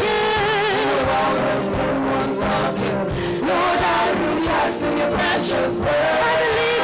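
Gospel choir singing a worship song with instrumental backing; the voices hold notes with vibrato at the start and again near the end.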